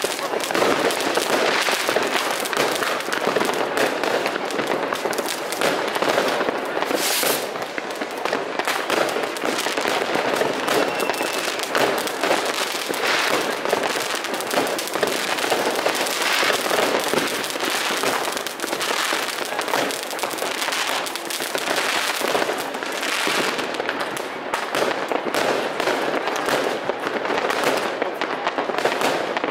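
New Year's Eve fireworks going off all at once: rockets and firecrackers in a dense, unbroken stream of bangs and crackles.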